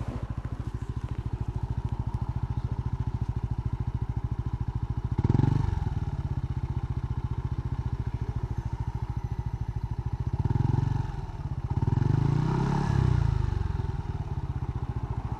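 Yamaha NMAX V2 scooter's single-cylinder engine running through a gutted stock muffler, idling with a steady putter that stays fairly quiet. The throttle is blipped briefly about five seconds in, and again around ten and twelve to thirteen seconds, each time getting louder.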